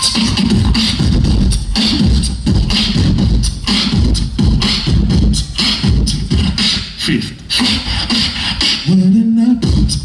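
Solo beatboxer performing into a handheld microphone: a steady rhythm of vocal bass-drum thumps and hissing snare and hi-hat sounds, with a short held hummed note about nine seconds in.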